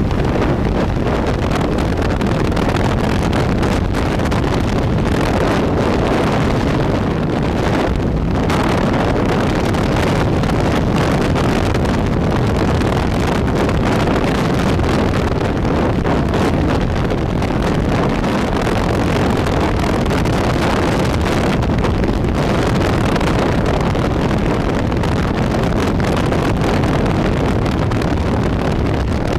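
Loud, steady rush of air blasting across a camera microphone during tandem skydive freefall.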